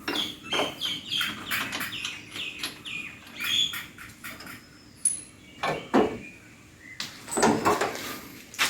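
Birds chirping in quick short calls, mixed with scattered knocks and clicks.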